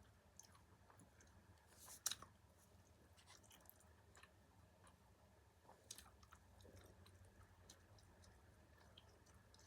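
A person chewing food, faint mouth sounds made up of scattered small clicks, with a sharper, louder click about two seconds in and another near six seconds.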